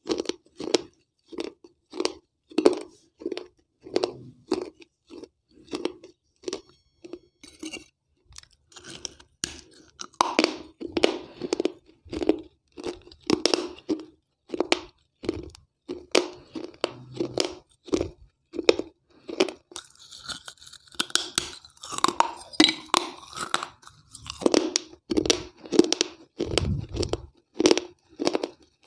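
Close-miked chewing and crunching of hard, water-soaked baked-clay gullak (terracotta piggy bank) pieces, in a steady rhythm of about two chews a second. There are two stretches of denser, grittier crunching, about a third of the way in and again past two-thirds.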